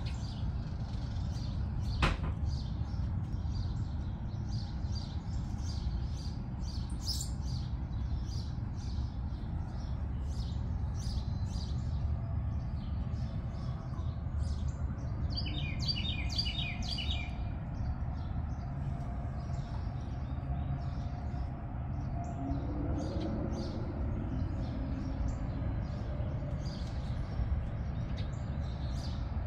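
Songbirds chirping and twittering with many short high calls, over a steady low rumble. About halfway through there is a quick trill of rapidly repeated notes, and about two seconds in a single sharp click.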